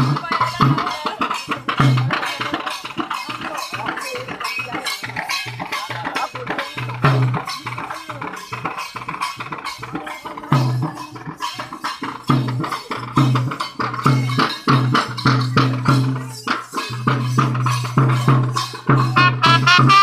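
Live processional drumming for a kavadi dance: a hand-carried barrel drum beaten in a fast, driving rhythm, with rattling percussion over it. A high-pitched melody line joins near the end.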